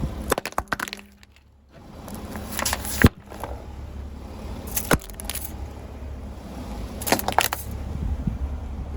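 A car's tyres rolling over and crushing objects: bursts of cracking and crunching over the low rumble of the car, with one sharp loud crack about three seconds in, another about five seconds in and a cluster of crunches near the end.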